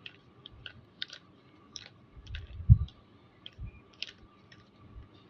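Rubik's cube being turned by hand: an irregular run of quick plastic clicks as the layers are twisted, with a low thump of handling about midway, the loudest sound.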